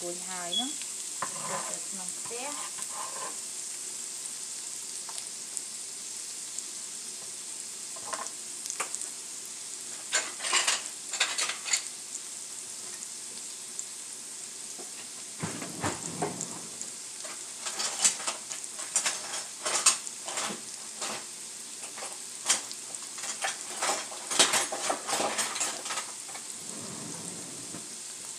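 Diced onion, carrot and jalapeño frying in hot cooking oil in a nonstick frying pan: a steady sizzle with bursts of sharp crackling and spitting, about ten seconds in and again through the second half.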